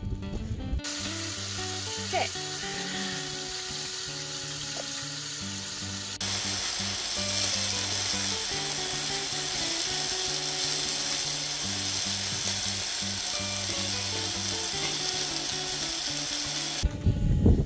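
Sliced peppers and onions sizzling in a hot frying pan as they are stirred, a steady frying hiss over background music.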